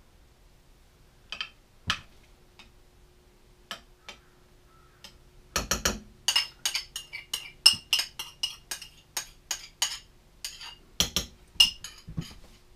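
A spoon scraping and tapping against a small bowl while spooning out a ketchup topping: a few scattered clinks, then from about five and a half seconds a quick run of clinks and scrapes, several a second.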